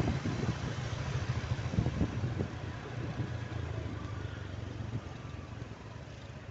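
Motor vehicle engine running with a steady low rumble and road noise, fading gradually.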